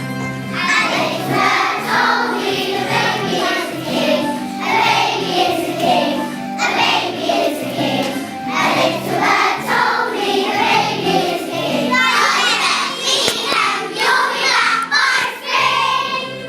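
Music: a song with several voices singing together, choir-like, over steady held chords.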